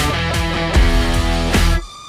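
Background music with a strong, regular beat; it drops away abruptly near the end.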